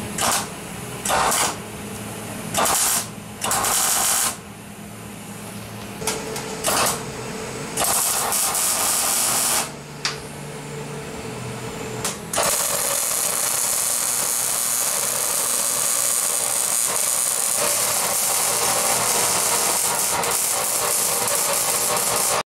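Arc welding on the steel frame of a riding mower: a run of short tack welds, each from a fraction of a second to about a second long, then from about twelve seconds in one continuous weld that runs on steadily.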